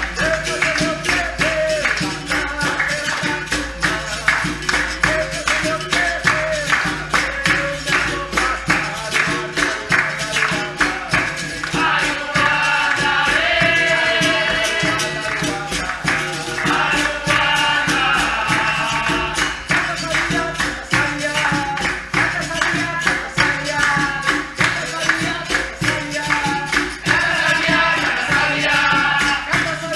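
Capoeira roda music: berimbau with its caxixi rattle and pandeiro keep up rapid, steady percussion, while group singing comes in several times over it.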